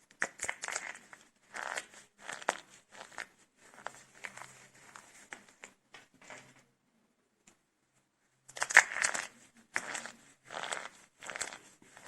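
Dry soap cups made with starch being broken and crumbled: a run of crisp crunches and crackles, a pause of about two seconds, then louder crunching.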